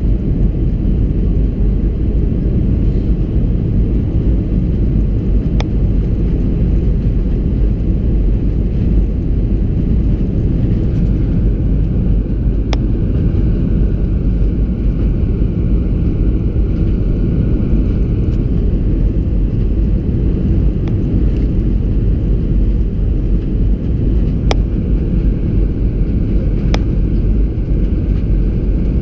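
Steady low rumble of an Airbus A320-200 heard from inside the passenger cabin: engine and airflow noise, with a few faint clicks.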